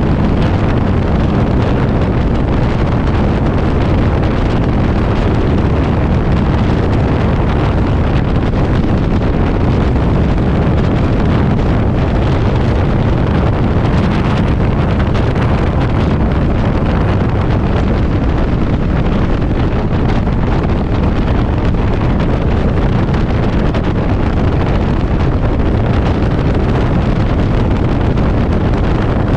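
Heavy, steady wind noise buffeting the microphone of a Yamaha V-Star motorcycle riding in strong gusty wind, with the bike's running mixed in underneath.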